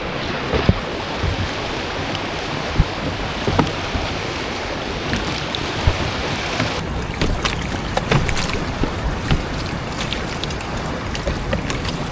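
Steady rush of wind and sea waves in a storm, with scattered short knocks and splashes.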